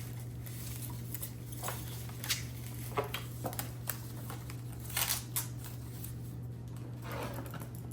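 Redragon gaming mouse buttons clicked a number of times, with some handling noise, over a steady low hum.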